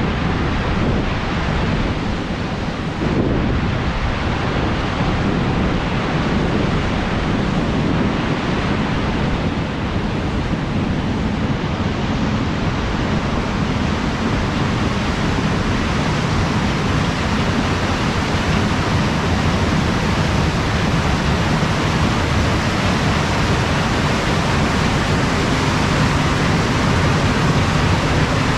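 Wind blowing across the microphone, a loud steady rushing noise, with a faint steady hum coming in under it near the end.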